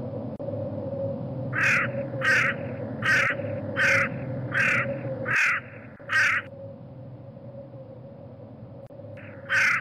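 A bird's harsh calls: seven short calls in a steady series, then a pause and two more near the end, over a steady low hum.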